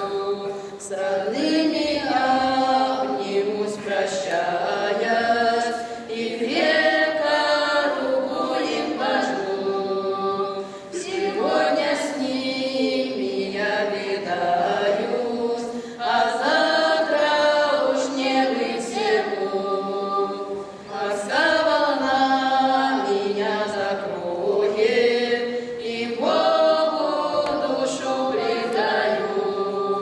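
A small choir of girls' and women's voices singing a slow Russian folk spiritual verse a cappella, in sung phrases of about five seconds each with short breaks between them.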